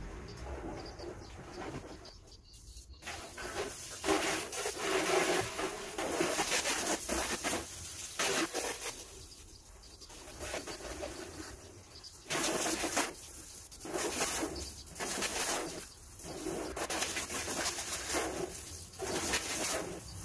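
Garden hose spraying water onto a car, the hiss and splash coming and going in bursts of a second or two as the spray is moved over the bodywork.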